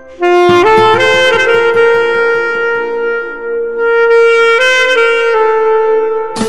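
Background music led by a wind instrument playing long held notes that step up and down in pitch every second or so.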